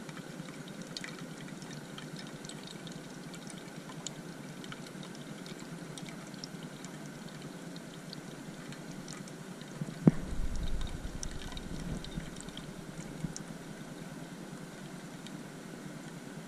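Canister gas stove burning steadily under a stovetop espresso maker, with espresso streaming into the cup with small spits and ticks. About ten seconds in there is a single sharp knock, followed by a couple of seconds of low rumble.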